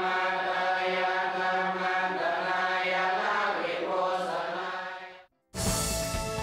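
Buddhist monks chanting together over a held low drone, fading out about five seconds in. After a brief silence, theme music starts abruptly near the end.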